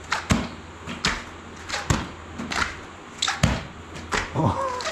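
Explosive plyometric push-ups on a foam gym mat: palms slap down on the mat again and again, each landing with a sharp breathy exhalation, and a short vocal grunt comes near the end.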